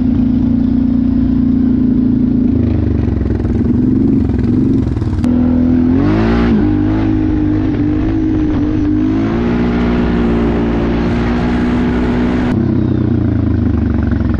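ATV engine running, its pitch shifting with the throttle, with a quick rev that rises sharply about six seconds in before settling to a steady run.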